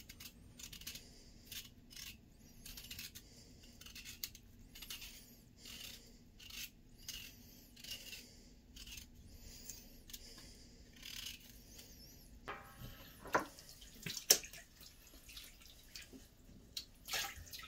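Kitchen knife paring the skin off a black radish: a run of faint, short scraping strokes. A few sharper knocks come near the end.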